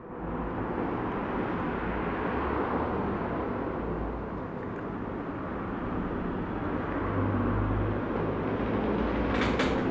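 Steady rumbling background noise, swelling slightly about seven seconds in.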